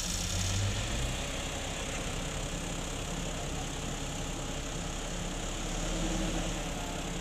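Truck diesel engine idling steadily, with a brief rise in engine speed just after the start.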